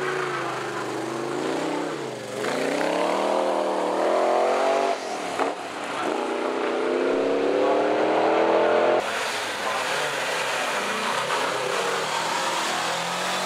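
Ford GT40's V8 engine accelerating away, revving up, dropping briefly with a gear change about five seconds in, then revving up again. The sound cuts off abruptly about nine seconds in, and another car's engine runs on more steadily and lower.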